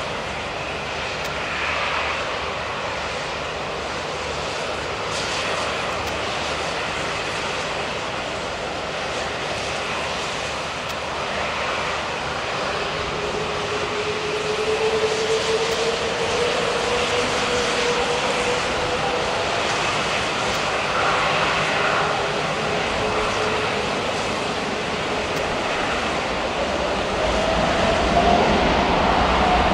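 Boeing 787-9 jet engines running with a steady rush, spooling up to takeoff thrust. About halfway through, a whine appears and rises steadily in pitch, and the sound grows louder near the end.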